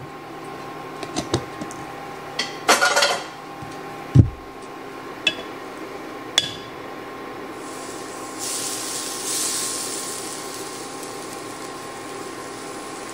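Kitchen utensils clinking and knocking against a ceramic bowl and a cast iron skillet, with one duller thump, then chicken pieces starting to sizzle as they go into the hot cast iron skillet, more than halfway through. A steady electric hum runs underneath.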